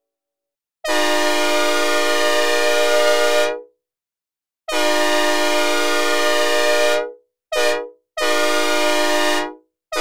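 Synthesized recreation of a Nathan K5LA five-chime locomotive air horn, dry with no reverb, sounding a steady chord in four blasts: long, long, short, long, the pattern of a grade-crossing signal. A fifth short blast begins at the very end. Each blast stops cleanly.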